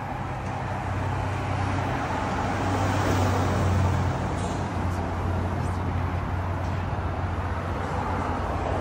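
Steady low hum and rumble of a motor vehicle, with road or traffic noise.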